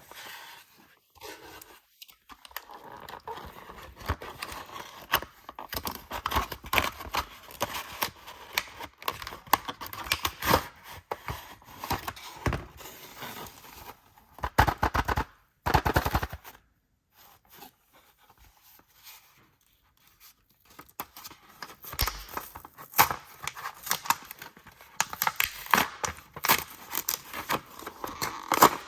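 Toy packaging being handled, crinkled and torn by hand: dense, irregular crackles and rustles, with a quieter stretch from about seventeen to twenty-one seconds in.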